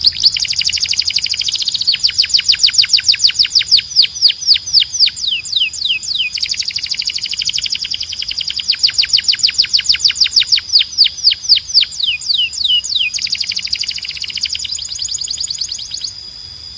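Canary singing in fast trills of high whistled notes, each sweeping downward, about seven a second, with the song switching to a new trill every few seconds.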